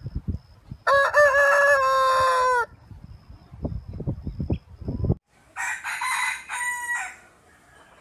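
A rooster crows once, a long call of nearly two seconds that falls away at the end, with low bumps and rustles between the calls. About six seconds in comes a second, higher-pitched rooster call.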